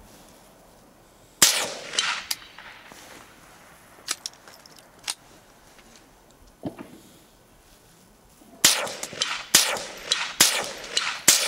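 Shots from a Ruger 10/22 .22 rimfire semi-automatic rifle: a single sharp shot about a second and a half in, then a quick string of shots near the end, less than a second apart. A few fainter sharp ticks come in between.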